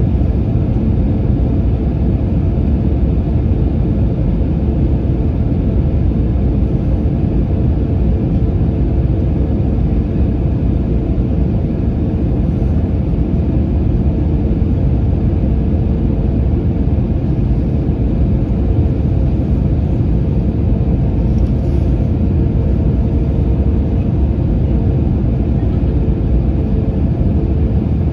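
Steady cabin noise of an Airbus A320-family airliner on approach: an even, low rumble of engines and airflow with a faint steady hum above it, heard inside the cabin.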